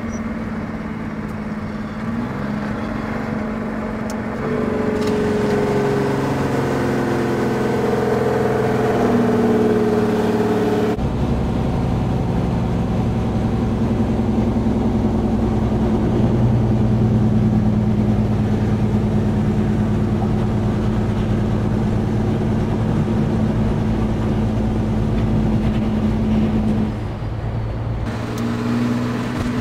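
Caterpillar C15 diesel of a Peterbilt 389 semi truck running on the road, its pitch stepping up about two and five seconds in. About eleven seconds in it changes suddenly to a lower, steady drone, which eases off near the end.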